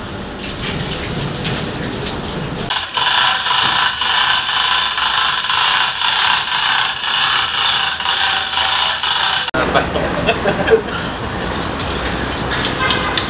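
Metal chain rattling steadily as a hand-chain hoist is pulled, with a fast run of small clicks. It breaks off abruptly about two-thirds of the way through, and a large pot of water is heard boiling hard under the steamer.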